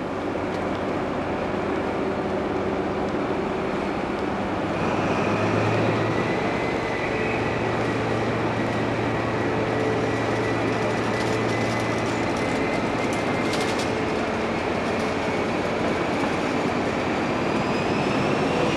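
A passenger train running, a steady dense rumble with a low hum held for several seconds, and a thin high tone that slowly rises toward the end.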